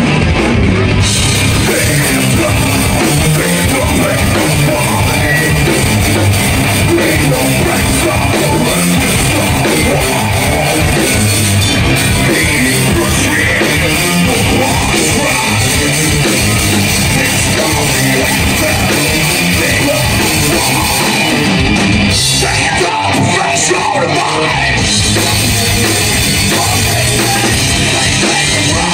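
Heavy metal band playing live: distorted electric guitar, bass guitar and a drum kit, with a vocalist singing into a microphone. About three-quarters of the way through, the low end drops away for a couple of seconds in a short break before the full band comes back in.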